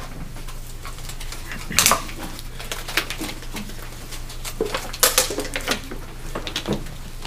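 Scattered clicks and light clatter of small objects being handled, over a steady low hum. The sharpest click comes near two seconds in, and a tight cluster follows around five seconds.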